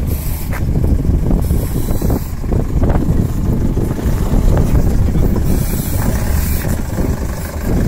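Steady low engine rumble of a motor vehicle or vessel, with wind gusting on the microphone.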